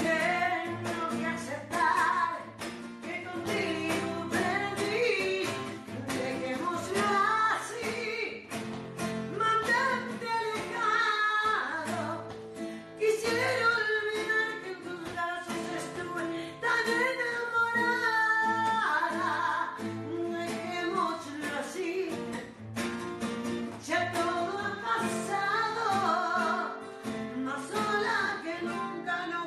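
A woman singing a slow ballad, accompanied by a strummed nylon-string classical guitar.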